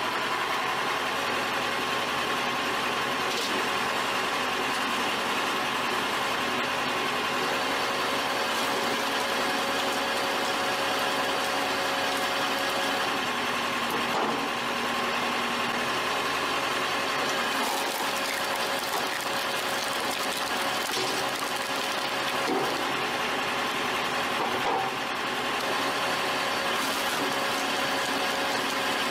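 Tractor engine running steadily while it drives a firewood processor, with a few faint brief clunks from the machine.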